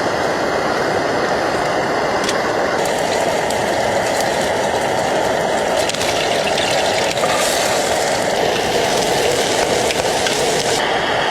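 Steady rushing wind of a snow storm. A hissier layer with faint crackles joins about three seconds in and drops away shortly before the end.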